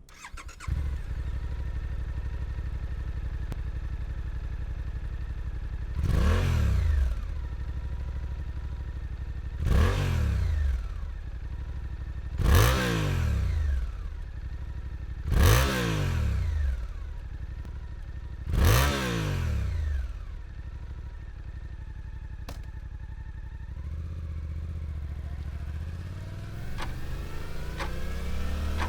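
Suzuki motorcycle engine idling, then revved in five short throttle blips that each rise and fall back to idle. A slower rise in revs comes near the end.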